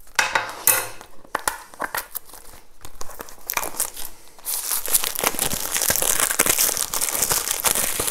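Plastic shrink-wrap film being cut and peeled off a cardboard box: scattered crackles at first, then from about halfway a dense, continuous crinkling of the film as it is pulled free and crumpled in the hands.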